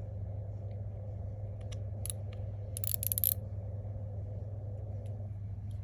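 Light metallic clicks of a small driver working the body screws on a Spyderco SpydieChef folding knife, with a quick run of clicks about three seconds in, over a steady low hum.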